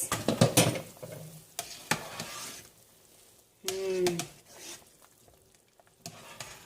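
A utensil stirring in a pot of simmering chicken noodle soup and clinking against the pot. The clinks are sharpest in the first second and come again briefly near the end.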